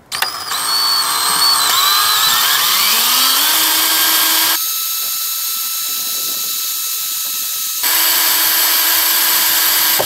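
Electric drill with a twist bit drilling into thin automotive sheet metal, going through the first layer of the body panel. The motor whine rises in pitch over the first few seconds as it spins up, then runs steady. It goes quieter for about three seconds in the middle before coming back up.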